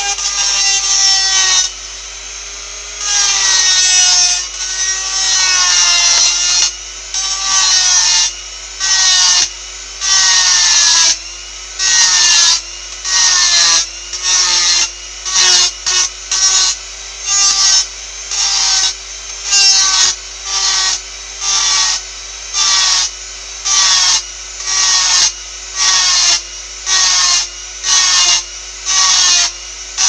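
Small power tool grinding: the motor runs steadily and its pitch wavers as the workpiece is pressed against it in short strokes, each giving a harsh rasp. The strokes last a couple of seconds at first and come about once a second in the second half.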